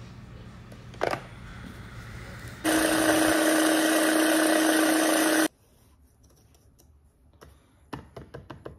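Small electric mini food processor running for about three seconds, chopping graham crackers and melted butter into crumbs, then cutting off suddenly. A knock about a second in, and a few light clicks near the end.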